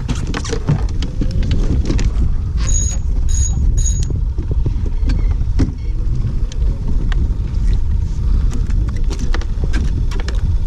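Wind buffeting the microphone in a steady low rumble, with scattered small knocks and three short high-pitched sounds about three seconds in.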